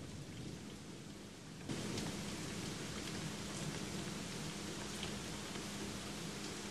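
Steady rain falling on a garden, with scattered drop ticks. The rain grows louder about two seconds in, when a faint steady low hum also comes in under it.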